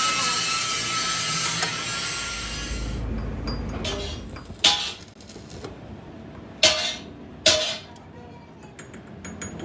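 A power tool running loudly in a metal workshop, cutting off suddenly about three seconds in. It is followed by three sharp metallic clinks that each ring briefly.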